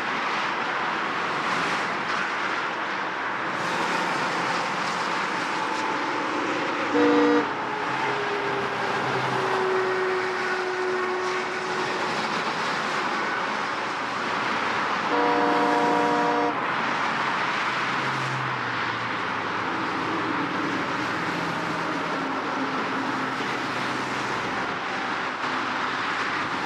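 Heavy road traffic: a dense, steady rush of passing vehicles. A horn honks briefly about seven seconds in, and a longer, louder honk of over a second comes near the middle.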